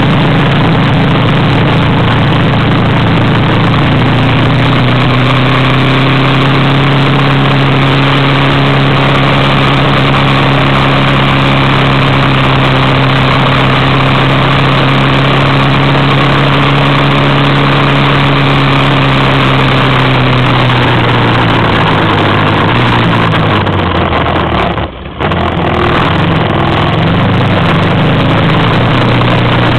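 Vehicle engine running steadily while driving across soft desert sand, under a thick rushing noise. A little over three-quarters of the way through, the engine note falls and the sound drops out for a moment, then the engine picks up again.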